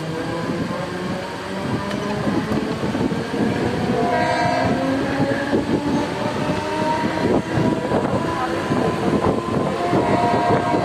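Mumbai suburban electric local train running: the motor whine rises slowly as it gathers speed, over dense rattling and clatter from the wheels and carriages. A short horn-like tone sounds about four seconds in.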